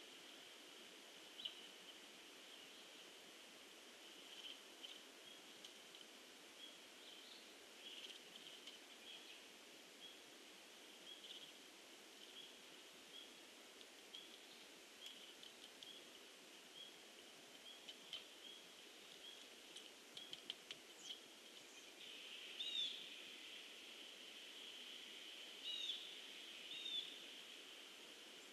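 Faint outdoor pond ambience: a steady high-pitched insect chorus, with scattered short bird chirps that grow louder and more frequent over the last few seconds.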